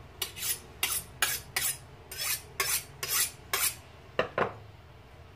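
A chef's knife drawn along a steel honing rod in quick alternating strokes, about ten sharp metallic scrapes, to hone the edge before slicing; the strokes stop a little after four seconds in.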